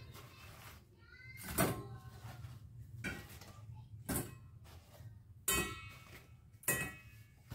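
Chicken wings being put into a bowl: about five separate clunks and knocks, a second or so apart, some ringing briefly, over a low steady hum.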